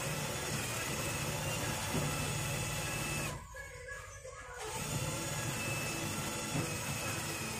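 Power drill running steadily while working into the door frame, stopping for about a second and a half a little past the middle, then running again.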